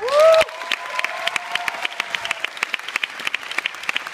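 Audience applauding with dense, steady clapping. It opens with a loud rising cheer, the loudest sound here, which drops back after about half a second and carries on fainter for about two seconds more.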